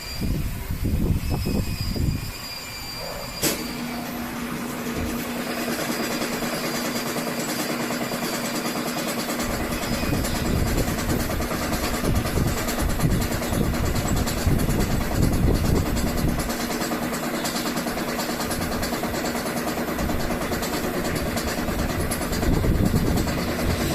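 Loren Sid Tufão 50 cm six-blade wall fan: a switch-like click about three and a half seconds in, then the fan runs with a steady motor hum over a rush of moving air that slowly builds.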